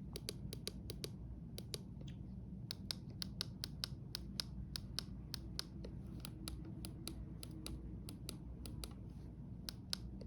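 A quick, irregular run of small plastic button clicks, several a second, as the buttons on a weather alert radio are pressed to silence it, over a steady low hum.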